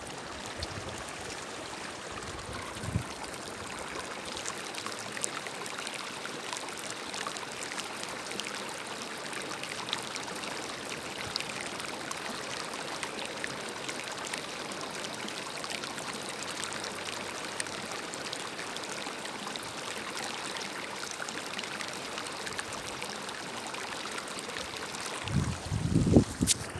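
Mineral spring water flowing in a steady trickle, with many small splashes and drips. About 25 seconds in, wind starts buffeting the microphone.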